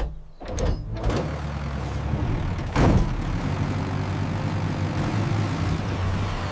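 Engine sound effect, most likely the cartoon's tractor: a few short knocks, then a steady low engine drone about a second in, with one louder burst near the three-second mark.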